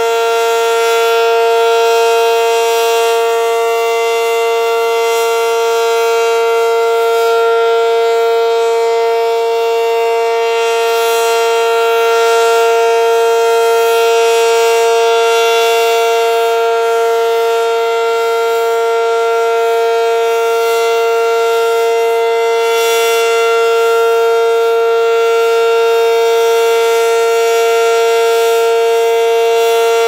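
ACA Cyclone 120 electromechanical outdoor warning siren sounding a loud, steady tone at full pitch.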